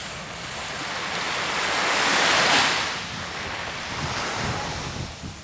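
Sea surf: a wave washes in, its rush swelling to a peak about halfway through and then falling away. Wind buffets the microphone near the end.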